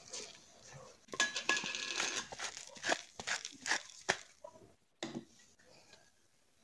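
Disposable plastic gloves crinkling and rustling while the hands handle a small glass container over a bowl, with sharp clicks mixed in. The crackling is busiest in the middle, then thins to a few scattered clicks near the end.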